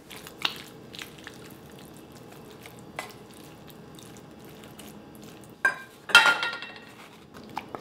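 Wooden spoon scraping marinated chicken pieces out of a stainless steel bowl into a skillet, with a few soft knocks. About six seconds in there is a louder clank of the metal bowl, which rings briefly.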